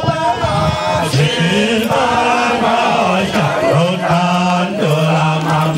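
Sukuma traditional song chanted by voices, led by a low male voice holding long notes.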